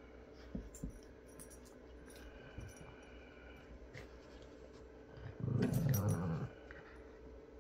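A dog giving a play growl, one low rough growl about a second long around two-thirds of the way in. A few faint knocks and rustles of the two dogs wrestling come before it.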